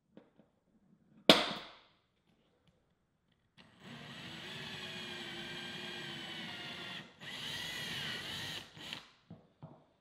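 One sharp snap of a center punch marking a hole in an MDF template, then a cordless drill with a 13/64 in bit boring through a drill guide into the MDF: one run of about three seconds, a brief break, a second shorter run whose pitch dips near the end, and a couple of short blips.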